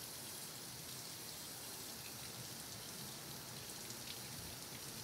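Water running steadily from a kitchen faucet and splashing over carrots into a stainless steel sink as they are rinsed.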